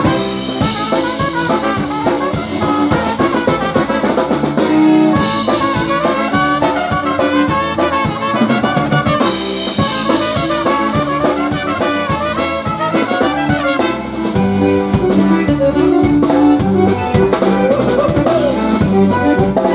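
Live polka band: two trumpets play the melody together over a drum kit's steady beat, with a concertina playing along.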